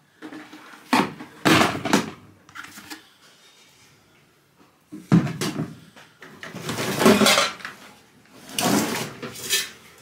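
Sheet-metal parts of a stripped-down microwave oven clattering and scraping as they are handled and moved, in several separate bursts.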